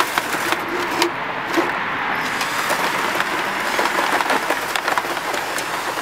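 Cordless drill spinning a drum toilet-snake cable with a zip-tie brush inside a metal dryer vent pipe: a steady whir with rattling and scraping clicks as the brush works loose the lint.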